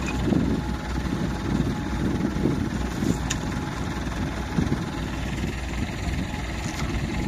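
Engine of a tracked Massey Ferguson tractor running steadily while it is stuck in a paddy-field mud hole.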